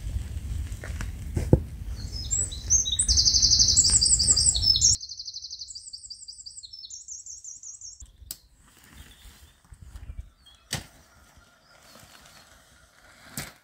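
A songbird singing loud, rapid high trills over a low rumble of wind on the microphone; about five seconds in the rumble cuts off abruptly and the song carries on for another couple of seconds. After that it is faint, with a few single clicks.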